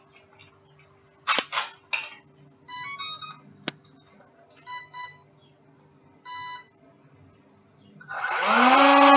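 A few clicks and a string of short electronic beeps from the mini Cessna's brushless motor ESC, then at about 8 seconds the electric motor spins up, rising in pitch and settling into a steady, loud whine.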